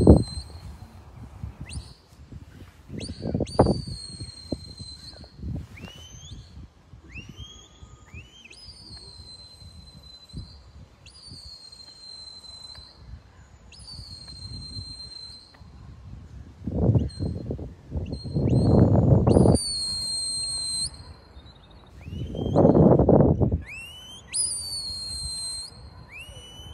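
Sheepdog handler's whistle commands: a series of short, high whistled notes, many sweeping sharply upward and some held steady then dropping, directing the working dog around its sheep. A few bursts of low rumbling noise come about two-thirds of the way through and near the end.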